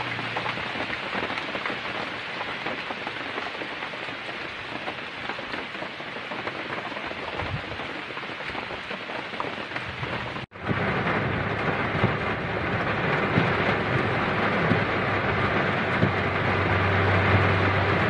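Heavy tropical rain pouring down steadily, with a short break about halfway, after which the downpour is louder.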